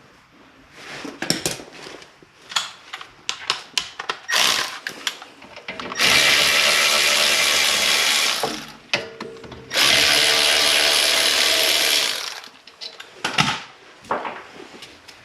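Handheld power tool spinning out brake caliper bolts in two steady runs, about three and then two and a half seconds long, after a string of clicks and knocks of the socket and metal parts.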